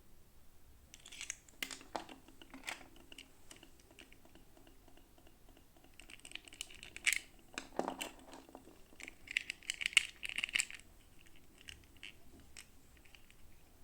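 Plastic packaging crinkling and rustling by hand, with scattered small clicks and taps of plastic pieces, as miniature toys are unboxed. Louder spells of crinkling come about seven and ten seconds in.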